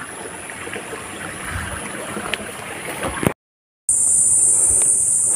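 Stream water running over rocks, then the sound cuts out for half a second about three seconds in. After that comes a loud, steady, high-pitched drone of insects.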